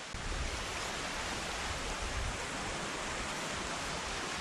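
Steady wind noise on the microphone: an even hiss with a low, buffeting rumble underneath that sets in at the start.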